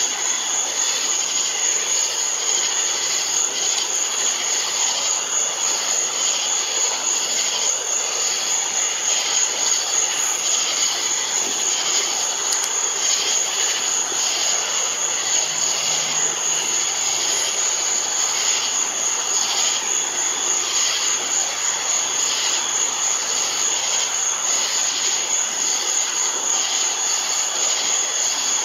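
Steady outdoor night ambience: a constant high, shrill pulsing tone over an even hiss.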